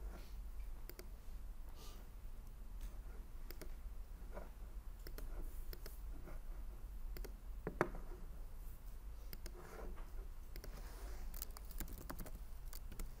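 Scattered computer mouse clicks, with a quick run of keyboard typing near the end and one sharper click about eight seconds in, over a low steady hum.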